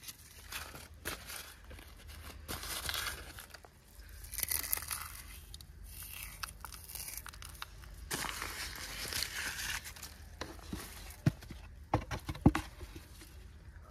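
Thin plastic bag crinkling and rustling as it is handled, in uneven bursts, followed by three sharp knocks in the last few seconds.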